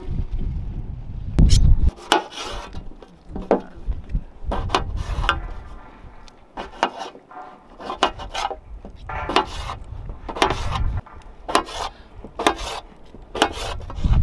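Knife slicing potatoes on a metal plate: a dozen or so crisp cuts, roughly one a second, each ending in a tap of the blade on the metal. Wind rumbles on the microphone in the first couple of seconds.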